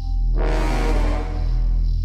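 Background soundtrack music with a steady low bass; a loud swell hits about a third of a second in and fades away over about a second.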